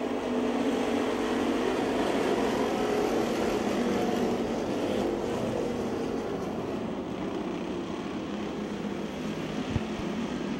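A pack of dirt-track stock cars racing together, their engines blending into one dense, loud drone that is strongest in the first half and eases a little later. There is a short thump near the end.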